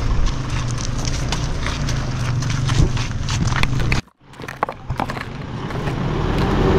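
Vehicle engine running slowly while its tyres crunch and crackle over loose stones on a rough track, with many sharp little clicks of rock under the wheels. The sound cuts out abruptly about four seconds in, then builds back up.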